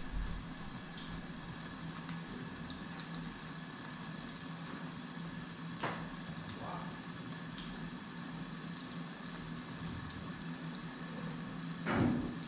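Food frying in a pan, a steady faint sizzle over a low hum. There is a light tick about halfway through and a soft knock near the end.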